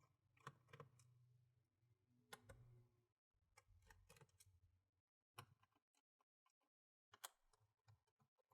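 Near silence with faint, scattered small clicks and taps of a tool working the bottom-case screws of an HP 15 laptop, over a faint low hum that stops about five seconds in.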